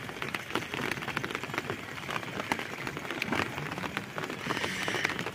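Rain pattering on pond water: a steady haze of many small drip-like ticks.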